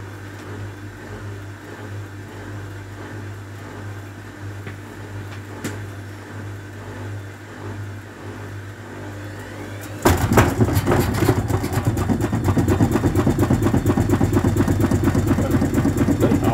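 Hotpoint WMA30 washing machine humming steadily, then about ten seconds in its first spin burst starts and turns much louder, with fast, heavy knocking as the drum runs with an extremely unbalanced load, shaking the machine so hard it jumps out of place.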